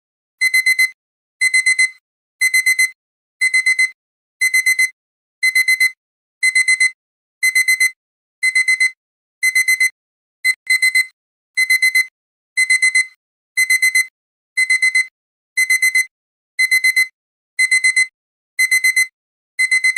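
Digital alarm-clock beeping: clusters of quick, high-pitched beeps on one steady pitch, repeating about once a second. It is the alarm signalling that the 15-minute countdown has run out.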